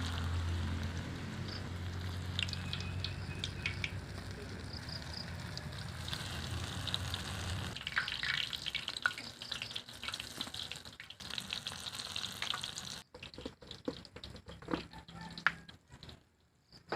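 Banana-and-jackfruit spring rolls (turon) sizzling in hot cooking oil, with a steady low hum under the sizzle for the first several seconds. About thirteen seconds in the sizzle stops, leaving a few light clicks and knocks.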